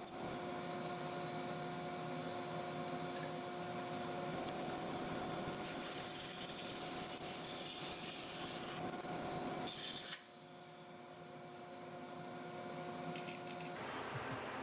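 A power tool cutting out a wooden knife handle, running steadily with a constant hum. About ten seconds in it drops away sharply, then builds back up.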